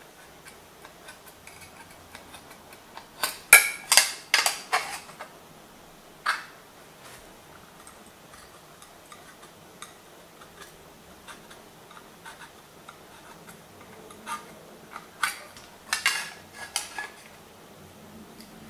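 Steel scriber scratching short dashes onto an aluminium sheet along the edge of a steel square, a faint tick for each stroke. Two clusters of louder metallic clicks and clinks, about three seconds in and again around fifteen seconds in, as the metal tools are handled on the workpiece.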